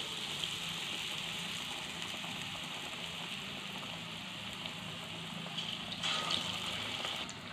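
Potato bondas in gram-flour batter deep-frying in hot oil in a kadai: a steady sizzle and bubbling of the oil. It gets a little louder about six seconds in, as another batter-coated ball is lowered into the oil.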